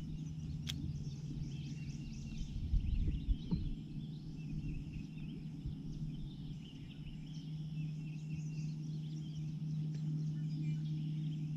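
Wild birds chirping and calling, many short notes overlapping, over a steady low hum. There is a single sharp click just under a second in, and a few dull low thuds around three seconds in.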